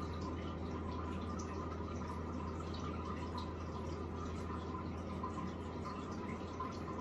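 Steady trickle of running water with scattered small drips over a low, even hum.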